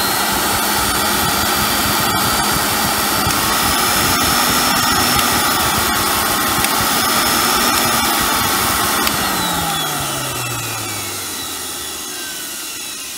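Hoover Sensotronic S3128 vacuum cleaner motor running at full speed with a steady whine. About nine seconds in it is switched off and spins down, its whine falling in pitch and fading.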